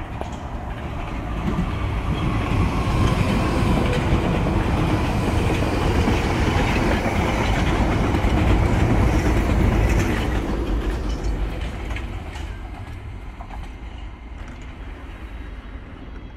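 London Underground Piccadilly line 1973 Stock train passing through the station without stopping, its wheels rumbling on the rails. The sound builds over the first couple of seconds, is loudest for several seconds as the train runs by, then fades as it goes away.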